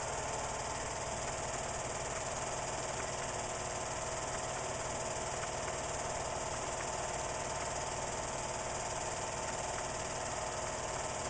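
Film projector running: a steady mechanical whir with a fast, even flutter underneath and a hiss over it.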